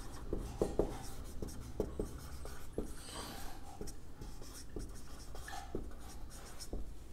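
Someone writing: faint, short scratching strokes and ticks, several a second.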